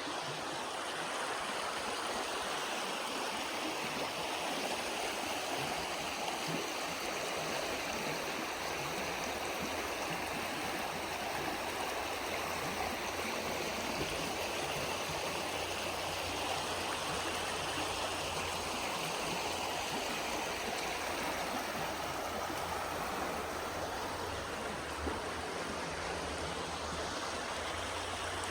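A mountain stream rushing and gurgling steadily.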